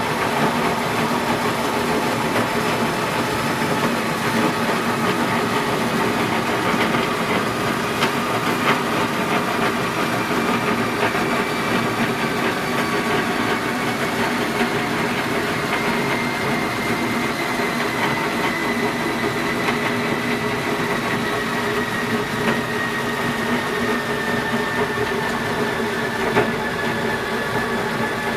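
Motor-driven lift mechanism of a DIY lathe cabinet running steadily as it raises the platform on threaded rods, with a whine that slowly drops in pitch over the second half.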